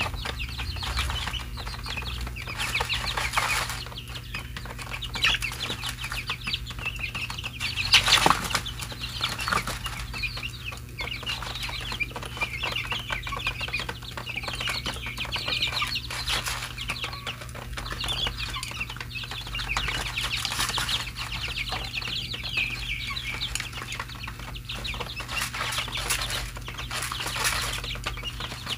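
A flock of young chickens cheeping continuously in a dense chatter of high peeps, with one louder burst about eight seconds in.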